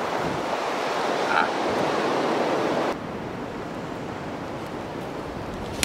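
Steady wash of ocean surf, with wind buffeting the microphone. The level drops abruptly about three seconds in.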